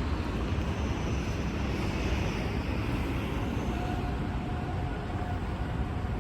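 Steady street traffic noise of vehicles running through a city intersection, mostly a low rumble, with no clear siren yet.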